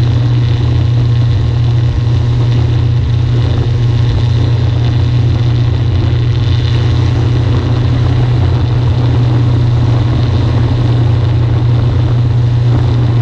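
Rotax 912 UL flat-four engine and pusher propeller of a Kolb Mark III light aircraft running steadily in flight: a loud, even low drone that holds without change.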